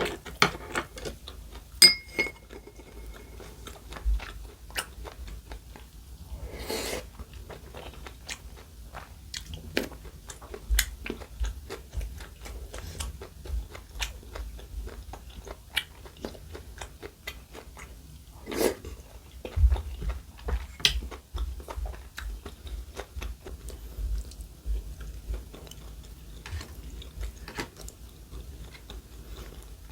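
Close-miked chewing and crunching of food, with many small wet clicks and crackles. About two seconds in there is a short ringing clink, like a utensil striking a dish.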